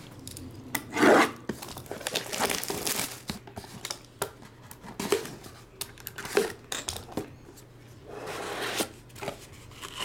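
Plastic shrink wrap on a trading-card box being slit with a utility knife and pulled off, rasping, rubbing and crinkling in several bursts with scattered clicks, then the cardboard box being opened.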